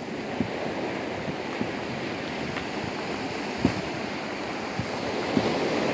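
Steady wash of ocean surf mixed with wind on the microphone, with a few brief low thumps.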